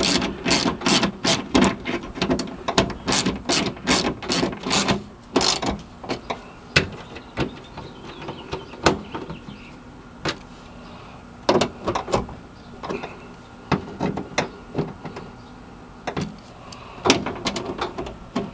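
Hand tools at work on a van's rear-door hardware: a quick, even run of ratchet-like clicks for about five seconds, then scattered clicks and knocks as parts are fastened.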